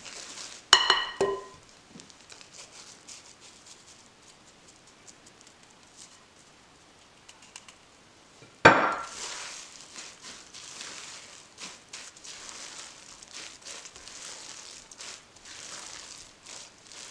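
Utensils working a thick oatmeal batter in a glass mixing bowl. Two quick ringing clinks against the glass come about a second in, then a louder clink a little past the middle, followed by steady scraping and stirring of the batter.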